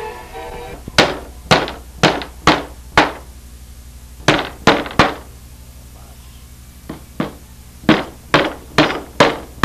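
Hammer blows driving silicon bronze ring nails into plywood: sharp strikes about two a second, in three runs with short pauses between.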